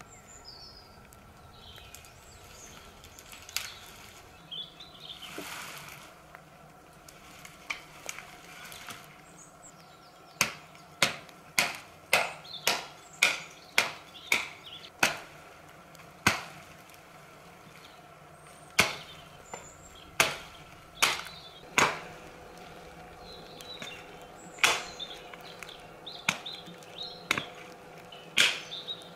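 Axe chopping the dead branches off a fallen conifer trunk: after quiet rustling, a quick run of sharp wooden chops about two a second begins about a third of the way in, followed by single chops spaced a second or more apart.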